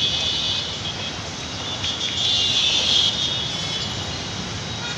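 Street traffic noise from cars and CNG auto-rickshaws, with a high, shrill sound over it that swells strongest about two to three seconds in.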